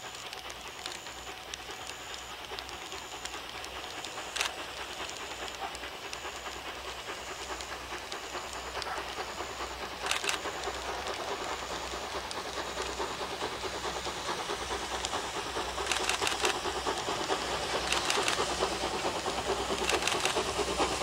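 JNR Class C58 steam locomotive No. 239 working toward the listener, its exhaust beating steadily and growing louder as it approaches.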